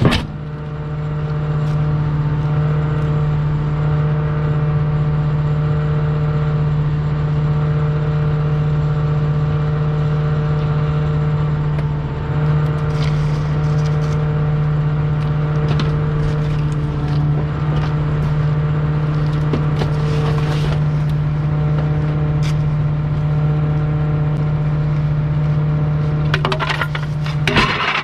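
Bulk-waste truck's engine running steadily, a constant low hum with overtones, with a few light clicks and rattles.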